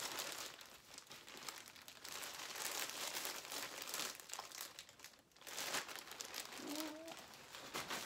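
Packaging crinkling and rustling in irregular handfuls as a new item is taken out and unwrapped.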